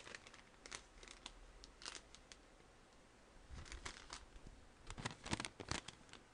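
Faint handling noise of shopping purchases being moved about: scattered light clicks and rustles, with a busier run of knocks and rustles a little past the middle.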